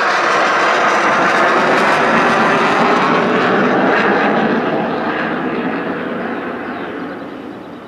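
Eurofighter Typhoon's twin jet engines, a loud roar with slowly sweeping tone as the jet goes past, steady for about four seconds and then fading away as it moves off.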